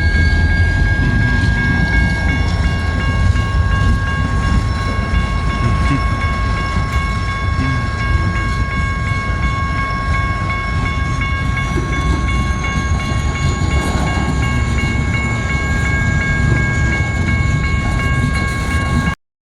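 Lake State Railway freight train rolling past: a steady low rumble of wheels on rail, with several thin high squealing tones held over it. The sound cuts off suddenly near the end.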